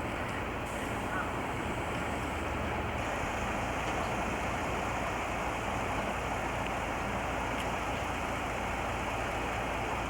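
Train running, heard from on board: a steady, even rumble of wheels and engine with no change in level.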